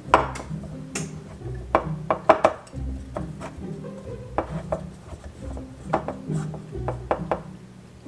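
Instrumental background music: held low notes under short, sharp notes at irregular spacing.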